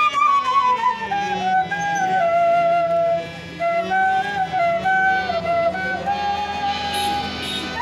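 Bamboo transverse flute (bansuri) playing a Rabha Sangeet melody: a single line of held and sliding notes over a steady low drone, dipping briefly about three seconds in.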